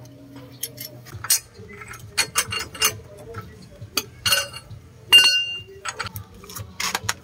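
Hand tools clinking and tapping against the steel wheel hub and brake disc of a car's front wheel, with a sharper ringing metal clank about five seconds in.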